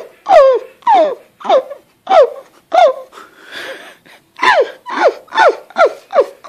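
A person laughing hard in rapid, falling 'ha' bursts, with a gasping, wheezy breath in the middle, after which the bursts come faster.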